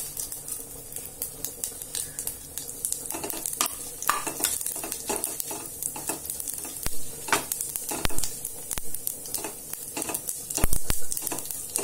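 Mustard seeds, fenugreek, cumin and urad and chana dal sizzling and crackling in hot oil in a stainless steel pot as a spatula stirs them, with frequent sharp pops. The spluttering is the sign that the tempering is done and the dals are browning.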